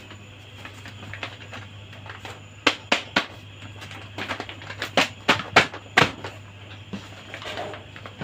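Hard plastic toy pieces clicking and tapping as they are handled, with a quick cluster of sharp clicks in the middle, over a faint steady hum.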